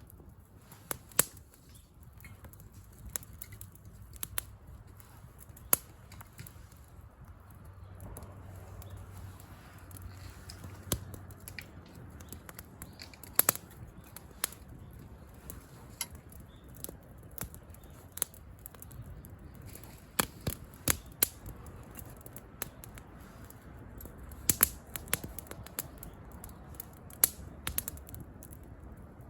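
Campfire crackling: burning wood giving off irregular sharp pops and snaps, some much louder than others.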